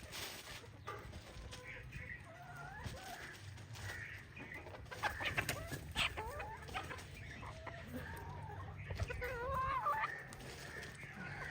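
A flock of free-range chickens clucking and calling, with many overlapping short calls and a few louder squawks near the middle and again near the end.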